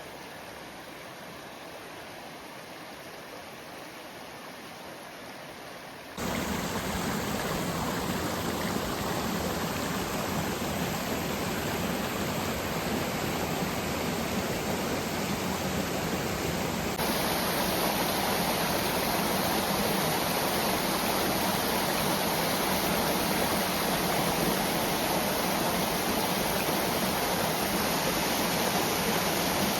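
Small mountain waterfall: a steady rush of falling water that turns suddenly louder about six seconds in and again a little past halfway.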